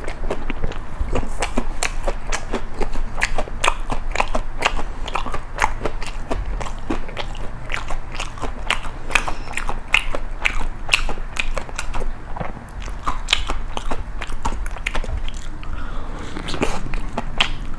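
Close-miked chewing of crisp toast spread with Nutella and nuts: a steady run of crunching and crackling bites.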